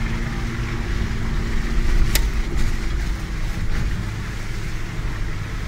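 Off-road 4x4 driving along a rutted dirt track, its engine and body rumbling steadily as heard from inside the cab, with one sharp knock about two seconds in.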